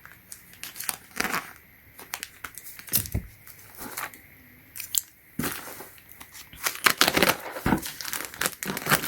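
Packaging being handled and opened: irregular crinkling and tearing rustles with sharp clicks, and a dull thump about three seconds in and another near the end.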